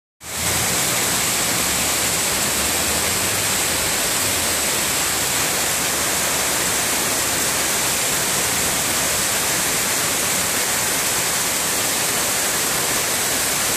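Heavy downpour of rain: a loud, steady, dense hiss of rain falling on surfaces, with no break.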